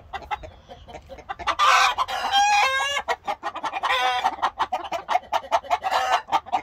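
A flock of hens clucking and calling in excitement, with loud bursts of calls about two seconds in and again around four and six seconds.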